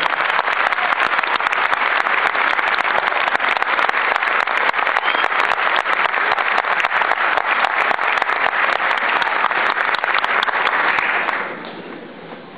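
Audience applauding, a dense, steady clapping that dies away about eleven seconds in.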